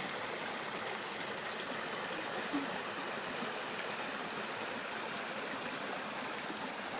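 River water flowing steadily, an even rushing over the shallows of a ford.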